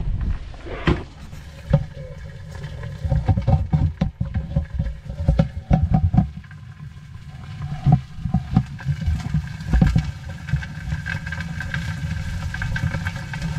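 Camera handled inside a plastic bait bucket of small live crabs: irregular clicks, knocks and scraping against the plastic as it moves among the crabs, over a steady low rumble of handling noise.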